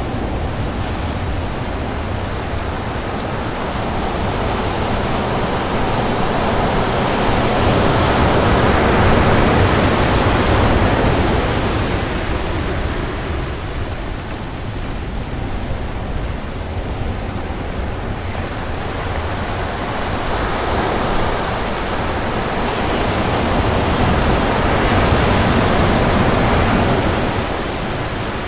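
Sea surf breaking and washing up the beach, a steady rush that swells twice, about eight seconds in and again about twenty seconds in, with a low rumble underneath.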